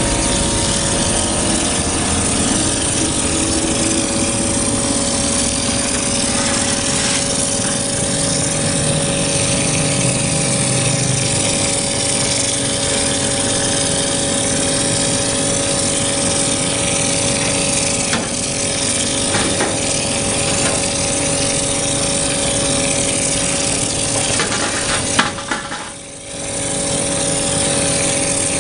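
Mortar spraying machine running, a steady hum under the loud rush of its spray gun blasting wet mortar onto a brick wall. Near the end the noise drops sharply for about a second, then comes back.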